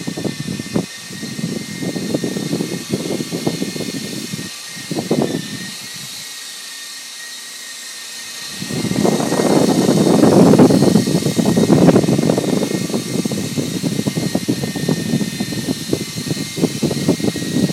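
Small electric RC helicopter flying: a steady high motor whine over the fluttering rush of its rotors. The rotor sound falls away for a couple of seconds in the middle, then comes back louder.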